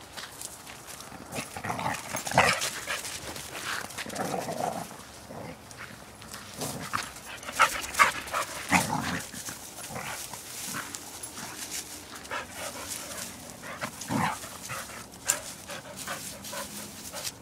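Two dogs play-fighting, with irregular bursts of dog sounds and scuffling.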